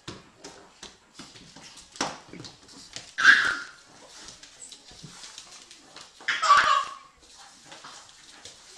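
A small dog making two short, loud vocal sounds, about three and six and a half seconds in, as it tugs at a crawling baby's trouser leg. Light taps and scrabbling on the hard floor run between them.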